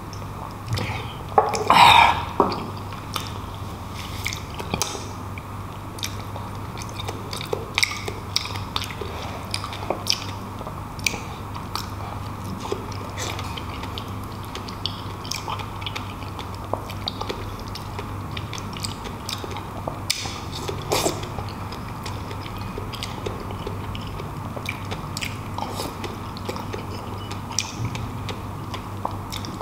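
Close-miked chewing of soft dragon fruit, with scattered small wet clicks and smacks of the mouth over a steady low hum. A louder, noisier mouth or drinking sound comes about two seconds in.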